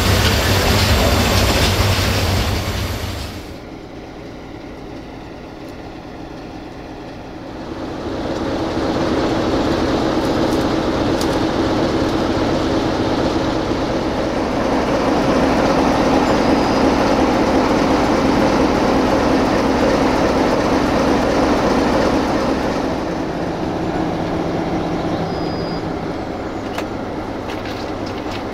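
Freight train of open wagons rolling past on the rails: a steady, loud rumble of wheels and bogies. It drops away sharply a few seconds in, then swells back after about eight seconds, with a couple of faint short wheel squeaks.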